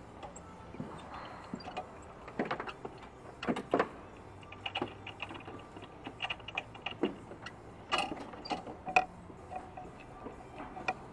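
Irregular knocks, clicks and clunks of plastic-bodied go-karts being handled as drivers climb out of them, with a few sharper clinks. The loudest clack comes near the end.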